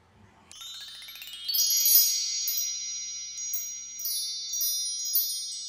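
Chimes ringing: a run of high bell-like tones sweeps upward over about a second, starting about half a second in, then the tones ring on with a few more light tinkles.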